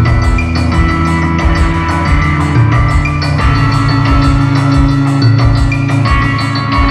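Music with a steady drum beat over held bass notes that change every second or two.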